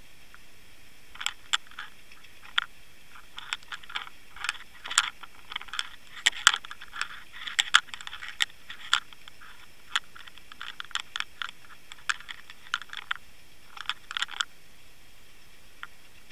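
Irregular sharp clicks and ticks, sometimes in quick clusters, heard through an underwater camera on a fishing line. They run from about a second in to near the end over a faint steady hiss.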